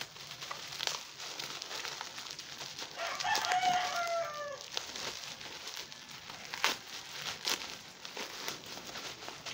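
Plastic bubble wrap crinkling as it is pulled off a small tripod, with a few sharp clicks near the end. A rooster crows once in the background about three seconds in, the loudest sound here, its call falling in pitch at the end.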